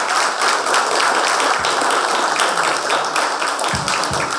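Audience applauding: a dense, steady round of clapping from a seated crowd.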